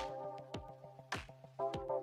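Background music: an electronic track with a steady beat and held synth notes over a constant bass.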